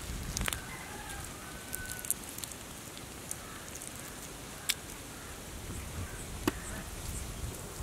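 Raw prawns being peeled by hand: a few sharp clicks as shells are pulled and snapped off, with faint bird chirps in the background.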